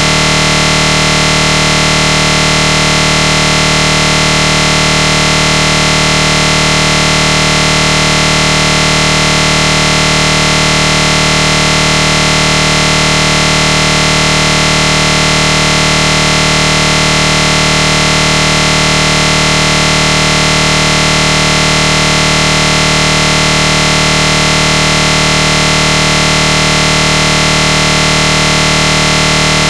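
A loud, unchanging buzz made of several steady tones over a hiss, with no rise, fall or break.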